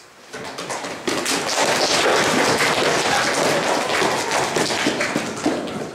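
Audience applauding, starting softly, swelling about a second in and tapering off near the end.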